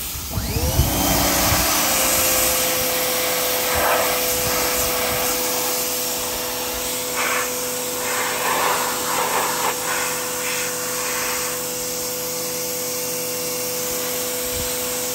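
Pressure washer jet blasting a steel frying pan: a loud, steady spray hiss starting abruptly, with a steady hum underneath and patches where the splatter gets louder as the jet moves over the metal. It is stripping rust and old seasoning loosened by an overnight vinegar soak.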